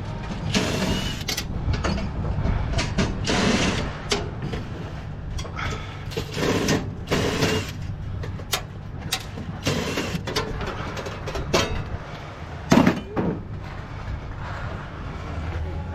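Scrap being handled and pulled apart by hand: irregular clattering, scraping and knocks, with one sharper knock near the end, over a steady low hum.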